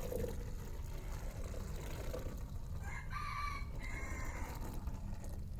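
A rooster crowing once, about three seconds in, over a steady low rumble.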